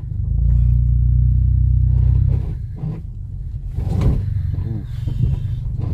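Car engine running under load, with a steady low hum that eases off a little over two seconds in. A single thud comes about four seconds in, typical of the car jolting over the rough, potholed track.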